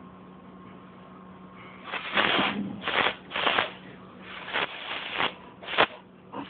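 Scratching on a closed cardboard box: a run of short rasping scrapes starting about two seconds in, with a sharp tap near the end.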